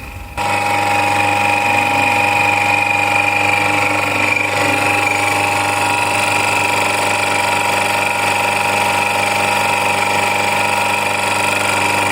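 Kärcher electric pressure washer running: its motor and pump give a steady hum with higher steady tones over it, starting abruptly about half a second in.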